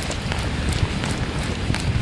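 Wind buffeting the camera microphone: a steady rushing noise with a low rumble and faint scattered clicks.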